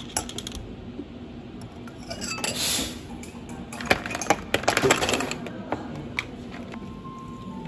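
A metal spoon clinks against a tall drinking glass as grapefruit syrup is spooned in. About two and a half seconds in comes a short scraping swell as ice is scooped, then ice cubes clatter and clink into the glass for about a second.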